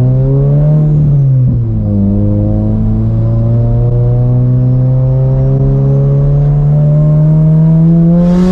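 Turbocharged 2022 Subaru BRZ's 2.4-litre flat-four under acceleration at about three-quarter throttle. The revs rise, fall sharply with a gear change about a second and a half in, then climb slowly and steadily again.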